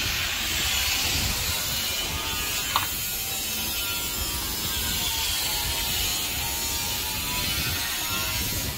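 Wind blowing over the microphone: a steady rushing hiss with a low, uneven rumble of gusts, and a single faint click about three seconds in.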